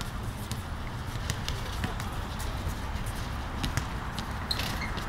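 Distant, indistinct voices of players across an open field over a steady low rumble, with scattered light taps and knocks.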